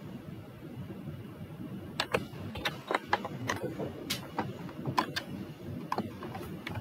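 Computer keyboard keys and mouse buttons clicking irregularly, about a dozen sharp clicks starting about two seconds in, over a steady low background hum.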